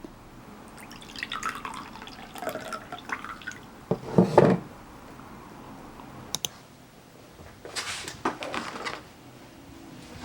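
Water or another liquid pouring and dripping, with a few knocks, a click and handling sounds of small objects.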